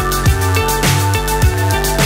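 Electronic pop background music with a steady drum beat and a stepping bass line.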